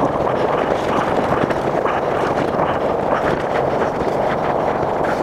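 Fabric body-armor carrier rustling and rubbing as hands pull the flexible rifle armor panel out of it: a steady crackly rustle.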